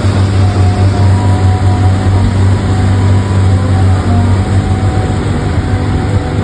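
Radio-controlled model truck running: a steady low drone with a faint, slightly wavering whine above it.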